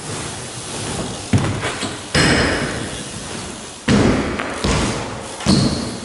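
BMX bike riding a plywood mini ramp: tyres rolling on the wood, with several thumps and knocks as the bike hits the ramp, the loudest about two, four and five and a half seconds in.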